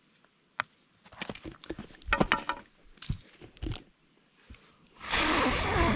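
Campfire being stirred with a stick: scattered sharp snaps, cracks and crunches of burning wood and ash. About five seconds in, a loud, steady rushing noise comes in.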